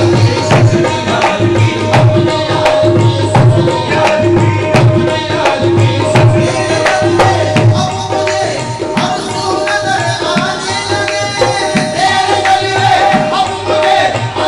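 Qawwali music: tabla beating a steady rhythm under sustained harmonium notes.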